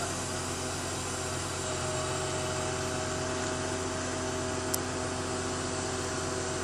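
Truck engine running steadily to drive a truck-mounted knuckle-boom crane's hydraulics, a constant hum with a few steady tones, as the crane lifts a load. A short sharp click about four and a half seconds in.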